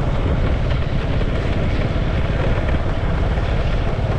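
Steady rumble of a moving vehicle, with wind buffeting the microphone.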